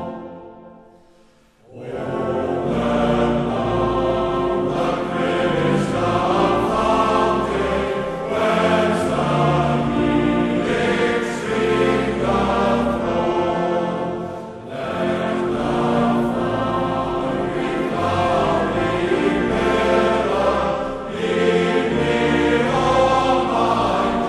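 Background choral music, a choir singing sustained chords. It fades out just after the start, and a new passage comes in about two seconds in and carries on steadily.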